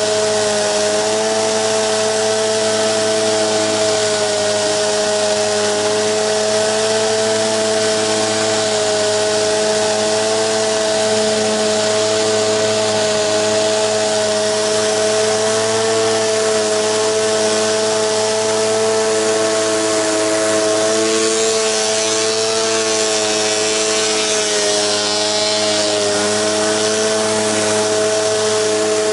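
Gas-engine pressure washer running steadily at full load, with the hiss of its water spray.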